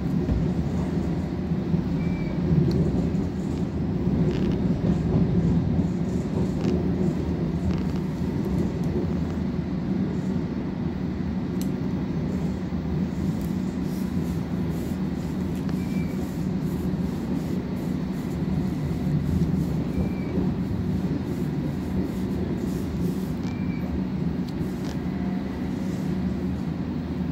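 Heard from inside the carriage, a London Underground District Line S7 Stock train runs along the track with a steady low rumble of wheels on rails. A few faint clicks and brief high squeaks come through over it.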